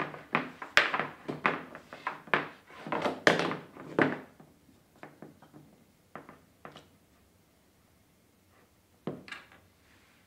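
Hard objects being handled and set down: a quick run of knocks and clunks over the first four seconds, then a few scattered ones and a single knock near the end.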